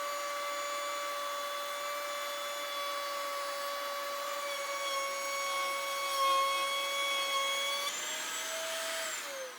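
Router table's router running with a steady high whine while a 1/2-inch plywood bit cuts a shallow first rabbet pass in Baltic birch plywood. Near the end the pitch rises briefly, then falls as the motor is switched off and spins down.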